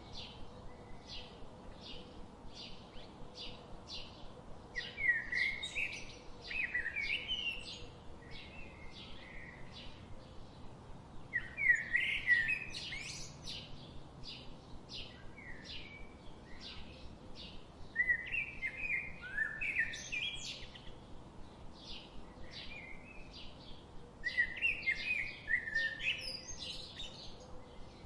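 Small songbirds chirping and singing. About every six seconds a brief, jumbled warbling phrase rises above a steady run of short chirps, repeated two to three times a second.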